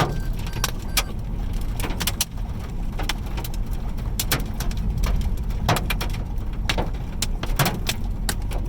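Vehicle driving in a severe storm: a steady low road rumble with scattered sharp taps, a few a second, striking the car.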